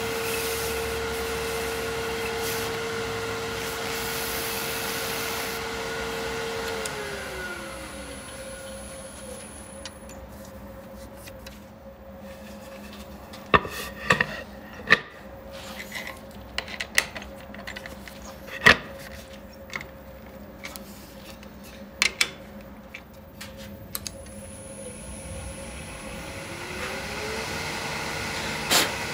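Wood lathe running with a steady motor whine, then switched off: the whine falls in pitch and dies away over about two seconds. Scattered sharp knocks and clicks follow while it is stopped. Near the end the lathe starts again, its whine rising back to speed.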